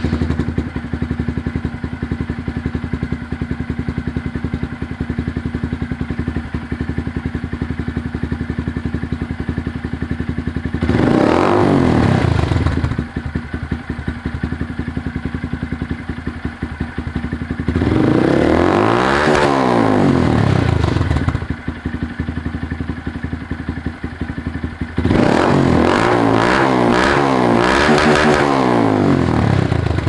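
2022 Honda Grom's single-cylinder engine running through a freshly fitted Tyga high-mount full exhaust, idling steadily and revved three times: a short blip about eleven seconds in, a longer rev up and back down around nineteen seconds, and a run of quick revs near the end.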